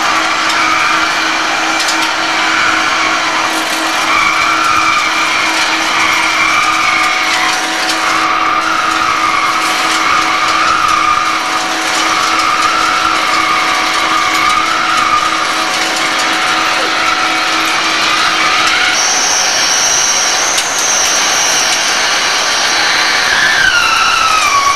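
Hegenscheid 105 underfloor wheelset lathe running, its tool cutting the tread of a railway wheel: a loud steady hum under a wavering, squealing whine. About three-quarters of the way through, the hum drops out and a higher whistling tone comes in. Near the end a squeal dips and rises again.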